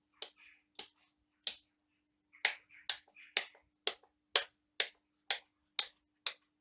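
Illuminated switches on a halogen-bulb load bank being flicked one after another, a sharp click about every half second, as the bulb banks are switched on and off in turn. A faint steady hum runs underneath.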